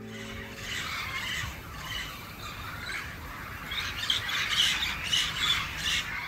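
A flock of parrots squawking and chattering in a tree, the calls growing louder and denser about two-thirds of the way through.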